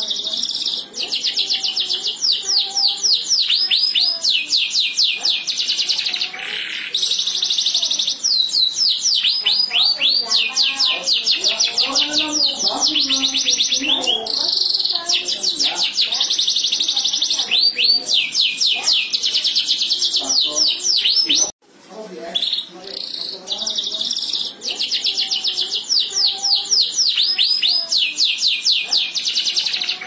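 Domestic canary singing a long song of fast repeated trills and rolling notes. The song cuts off abruptly about two-thirds of the way through and starts again straight after.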